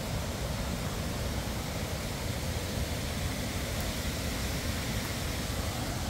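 Steady rushing of a waterfall's cascades: an even hiss with a low rumble under it.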